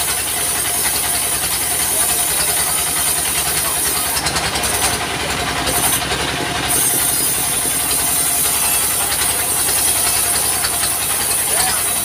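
Stationary diesel engine running steadily with a fast, even pulse, driving a band sawmill as a timber beam is fed through the blade. Over it is a steady hiss, brighter between about four and seven seconds in.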